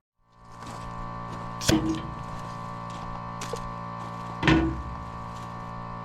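Air compressor running with a steady hum, with two short clunks, one at about two seconds in and another about four and a half seconds in.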